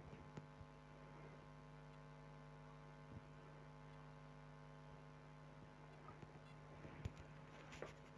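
Near silence with a faint steady electrical hum, and a few faint clicks near the end.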